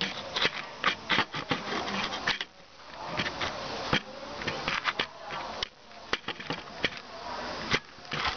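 A caged yellow canario finch singing: fast runs of sharp chipping notes, each run broken by a short pause.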